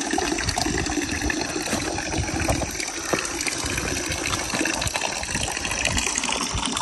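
Steady rush of water: an even, fairly loud hiss with small irregular patters throughout.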